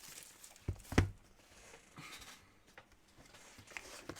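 Trading cards and packs being handled on a table: two sharp knocks about a second in, then faint rustling and small ticks.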